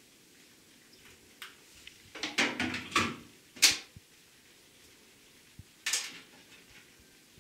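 Handling noises: a quick run of light clattering knocks about two to three seconds in, ending in one sharp click, as the Philips MoistureProtect hair straightener is put down on a hard bathroom surface. About six seconds in there is a brief rustle of hair being gathered and separated.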